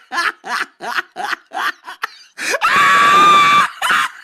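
A person laughing hard in quick, repeated bursts, breaking about halfway through into a loud, high-pitched scream-like squeal held for about a second, then one more burst of laughter.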